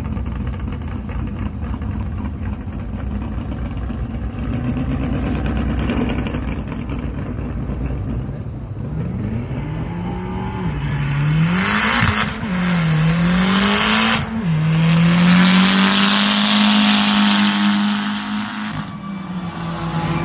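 Turbocharged 2004 Chevy Cavalier's 2.4-litre LE5 four-cylinder making a drag-strip launch at 13 psi boost. It runs low and steady at first, then revs hard about nine seconds in, with a sharp drop in pitch at each of three gear changes. It holds a high steady note with a loud rush of noise, then falls away near the end.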